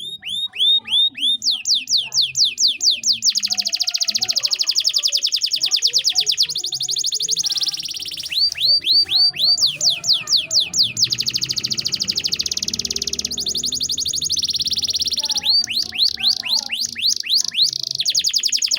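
Canary singing a long song made of repeated runs: strings of quick falling whistled notes that switch back and forth between slower sweeps and very fast, buzzy trills.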